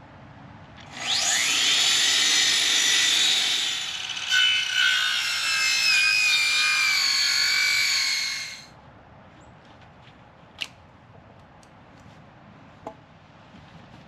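Power saw spinning up with a rising whine and cutting through wood for about eight seconds, its pitch sagging as the blade bites, then stopping. Two light clicks follow.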